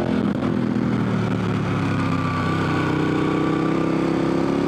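KTM 1190 Adventure R's V-twin engine running under throttle through a corner, its pitch holding nearly steady and rising slightly near the end.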